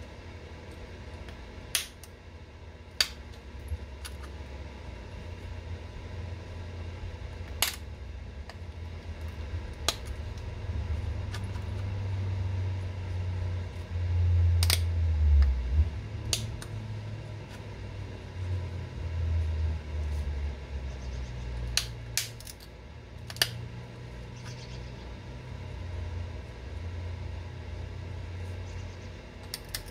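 Flintknapping: notching a stone point by pressure flaking, with a sharp click each time a small flake pops off, every few seconds and a quick run of three near the end, over a low, uneven rumble.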